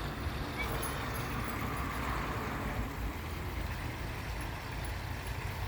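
Steady rushing splash of a backyard pond waterfall, with a low rumble underneath.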